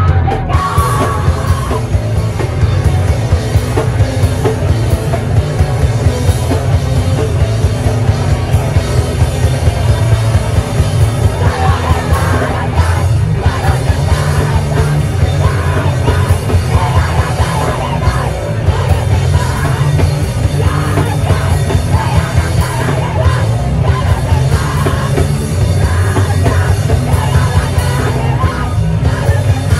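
Live band playing loud, fast punk rock with yelled vocals over pounding drums, heard from within the crowd.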